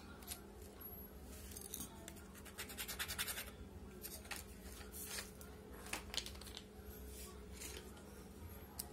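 Faint handling noise of hands working small insulated wires and plastic sleeving: a stretch of rapid scratching and rubbing in the first half, then a few scattered clicks and scrapes, over a faint steady hum.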